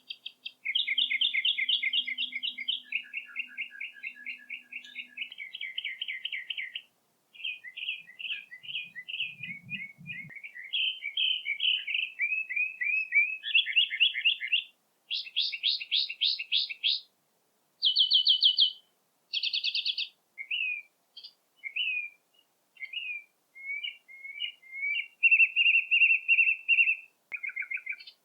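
Songbird song: a run of rapid trills and short chirping phrases, each a second or two long, separated by brief pauses.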